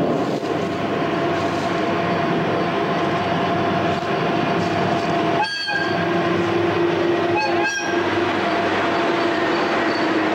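A metre-gauge diesel locomotive passes close with its engine running, followed by a freight train of tank cars and boxcars rolling by on the curving track. Engine noise and the rumble of the wagons mix steadily, and the sound briefly drops out twice a little past the middle.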